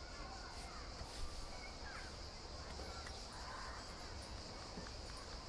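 Outdoor summer ambience: a steady high insect drone with scattered short bird calls and chirps over a low background rumble.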